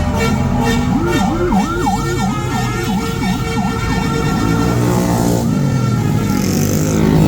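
Tour bus's basuri musical 'telolet' horn playing a siren-like warble: a quick series of swooping tones, about three a second, starting about a second in. It then goes over to held horn notes with slower bends.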